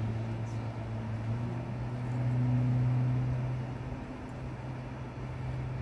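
An engine running steadily with a low hum, growing louder for a second or so around two to three seconds in, then easing back.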